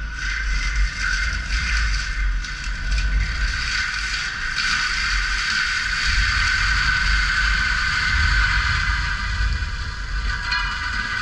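Cat 299D3 compact track loader working: its diesel engine runs steadily under load with a constant high whine. Scraping and clattering of the tracks and bucket against dirt come through over the first few seconds.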